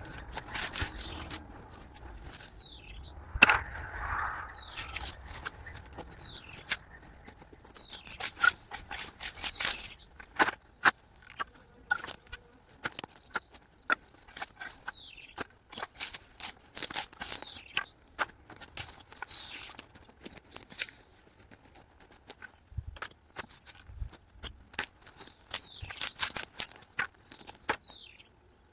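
A rake scraping and dragging through cut branches, twigs and dry vegetation, with irregular rustles and sharp snaps and clicks of wood; the sharpest snap comes about three and a half seconds in.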